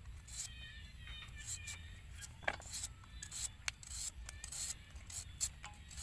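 Raw potato being sliced on a handheld flat-bladed slicer, a crisp scrape with each stroke at about two strokes a second, with thin slices dropping into a steel pot.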